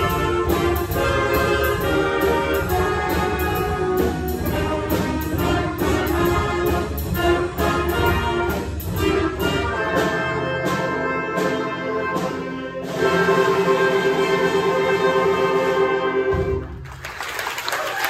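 Middle school jazz band of saxophones, trumpets, trombones, guitars, keyboard and drum kit playing the closing bars of a tune, ending on a long held chord that cuts off about three-quarters of the way through after the drums drop out. Audience applause starts right after the cutoff.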